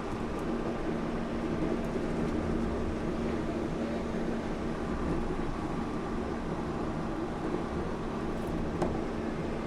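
Yurikamome rubber-tyred automated train running between stations, heard from inside the car: a steady rumble with a constant low hum. A single brief click comes near the end.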